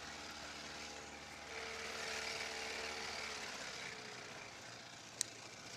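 Small boat motor running steadily at trolling speed, with a steady hiss over it. A single sharp click about five seconds in.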